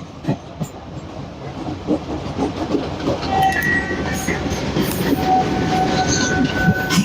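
Passenger train coaches rolling on the track, the wheels knocking and clattering over rail joints and getting gradually louder. From about halfway through, a thin, high squealing tone from the wheels or brakes rides over the clatter.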